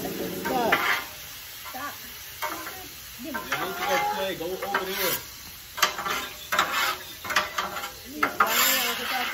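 Stir-fried vegetables sizzling on a hot cooking surface while a utensil stirs and scrapes them, with sharp knocks of the utensil against the pan in the second half.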